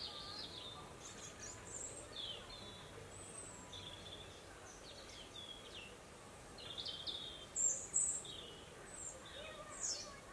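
Small songbirds singing: a steady run of short, high chirps and whistled notes, with the loudest notes a little past the middle.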